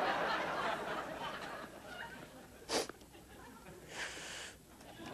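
Low, muffled voices fading out, then one sharp knock about three seconds in and a short breathy hiss a second later, amid handling of a small animal.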